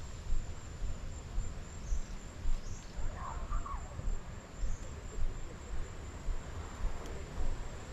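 Steady high-pitched chorus of crickets, with a hiker's footsteps on the trail about twice a second. A short bird call comes about three seconds in.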